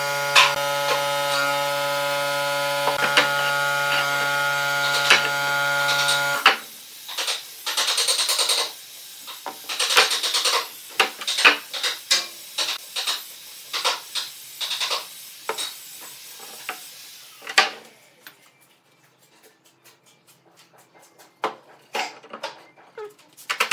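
A steady electrical buzz with many overtones cuts off suddenly about six seconds in. After it, wooden boards knock and clatter against one another and on the steel pipe clamps as they are laid out and glued edge to edge.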